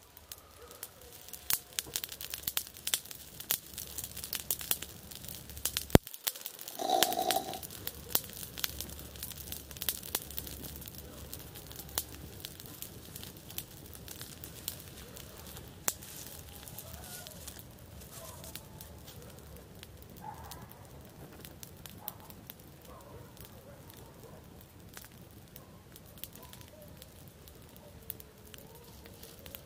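Campfire wood crackling and popping in sharp, irregular snaps, thickest in the first dozen seconds and thinning out after. A louder short burst comes about seven seconds in.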